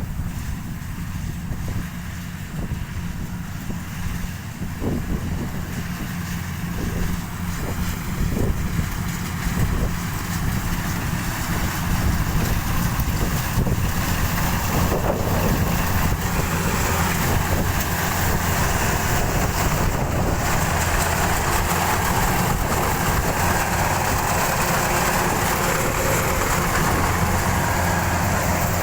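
Rice combine harvester running steadily as it cuts through the field, its engine drone growing louder and fuller about twelve seconds in as the machine draws nearer.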